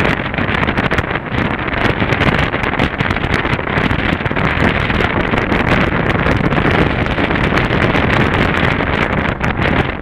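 Steady wind rush buffeting the microphone of a camera on a moving BMW R 1200 GS Adventure motorcycle at road speed, with the bike's boxer-twin engine running underneath.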